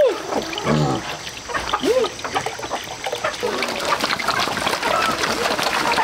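A herd of pigs feeding at a wooden trough, slurping and splashing through wet slop, the noise thickening from about halfway through. A few short calls come in the first two seconds.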